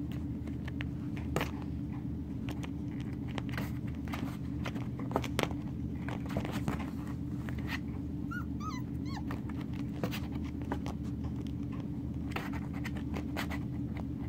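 One-month-old Ausky puppies scuffling and play-fighting on carpet: scrabbling and small clicks throughout, with a quick run of about five short, high whimpering yelps about eight seconds in. A steady low hum runs underneath.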